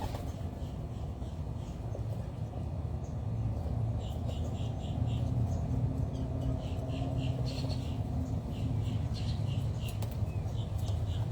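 Steady low rumble, like distant traffic, with birds chirping over it in quick runs of short repeated notes from about four seconds in.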